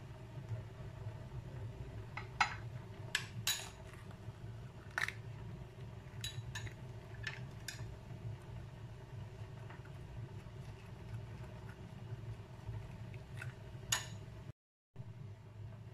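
Metal spoon clinking and tapping against a small glass bowl as it scoops yogurt-and-pickle-masala filling: about a dozen light, irregular clinks, most in the first half and a couple near the end, over a low steady hum.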